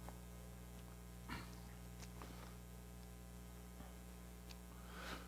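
Near silence over a steady low electrical mains hum, with a couple of faint short sounds.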